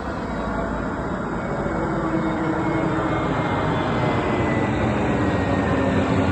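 Airliner landing, its jet engines a steady rushing noise with faint whining tones, growing steadily louder as it approaches.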